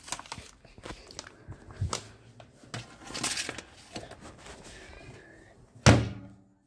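Rustling and light knocks as a paper microwave popcorn bag is handled and set on a microwave's glass turntable. A single loud thud near the end as the microwave door is shut.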